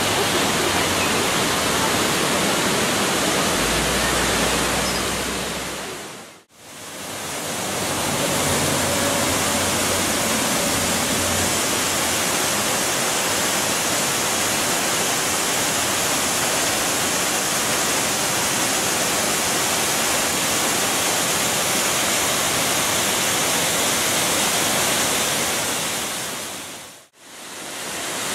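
Steady rushing of waterfalls and cascades, an even wash of water noise. The sound dips out briefly and returns about six seconds in and again near the end.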